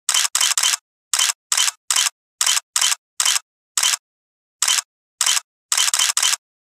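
Camera shutter firing again and again, about fifteen sharp clicks in six seconds. The clicks come at uneven intervals, some in quick runs of two or three, with dead silence between them.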